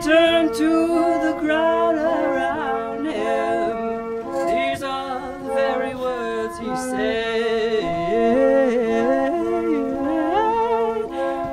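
Harmonium pump organ holding sustained chords while a woman's voice carries a wordless melody over them, sliding and bending in pitch.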